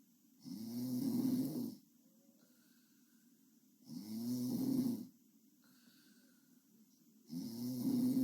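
A sleeping girl snoring with her mouth open: three loud, buzzing snores about every three and a half seconds, each lasting just over a second, with faint breath sounds between them.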